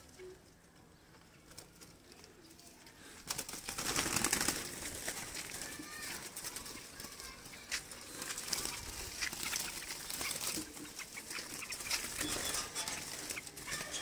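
Rustling and wing-flapping of a caught bird being handled, starting about three seconds in, with scattered clicks and a few faint bird calls.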